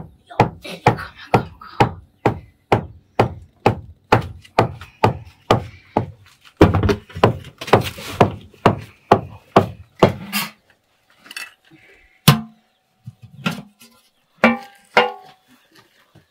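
Repeated sharp chopping or pounding strikes, a little over two a second, for about ten seconds, then a few scattered strikes.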